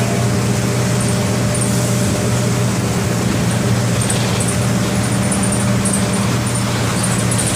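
MWM 4.12 TCE four-cylinder inline turbodiesel of a Volksbus 15-190 EOD bus, running with a steady, unchanging drone.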